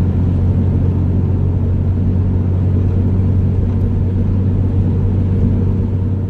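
Steady low rumble of a van driving at highway speed, heard from inside the cabin: engine and road noise.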